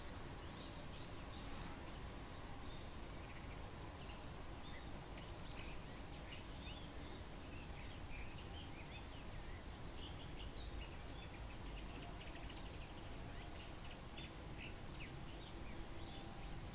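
Bull-headed shrike giving its autumn high-pitched call (takanaki), the territorial call of the season: a run of short, sharp, high chirps that come thicker through the middle, over a steady low background noise.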